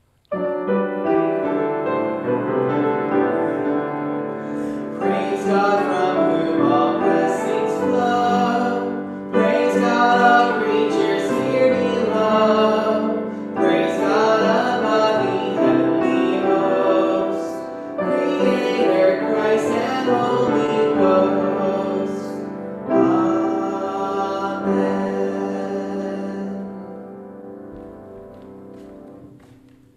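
Upright piano music with a voice singing along. It starts abruptly and fades away over the last few seconds.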